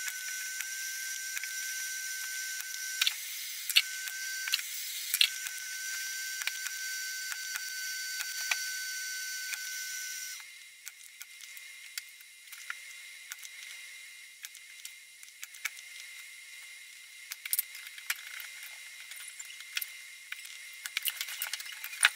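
A powered desoldering tool runs with a steady high whine and hiss while the old IGBT transistors are taken off the circuit board. The whine breaks off twice with clicks, stops about ten seconds in, and is followed by lighter clicks and taps of handwork on the board.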